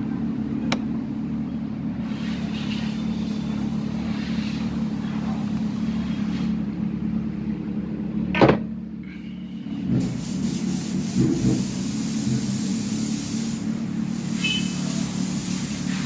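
Honda ADV 150 scooter's single-cylinder engine idling steadily. About eight and a half seconds in there is a sharp knock, the sound dips for a second or so, then the engine note comes back with a few small rises.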